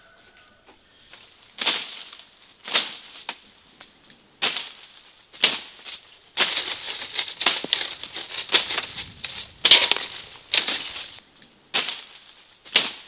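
Leafy tree branches rustling in a series of sharp bursts, about one a second, as a person up in the tree moves and shakes the branches.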